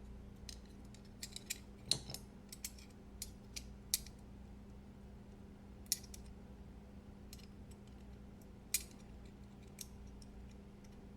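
Light metallic clicks and taps at irregular intervals as the small metal parts of a folding knife, blade and bearings, are handled and set into the handle during reassembly.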